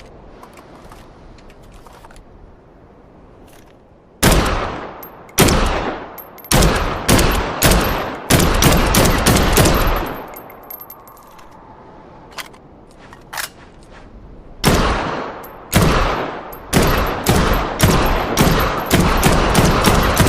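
Sporting rifle shots: after about four seconds of quiet, single sharp shots about a second apart, each with a ringing, echoing tail, then quicker shots. After a lull with a couple of small clicks, the shots come again about fourteen seconds in and speed up to rapid fire of about three a second near the end.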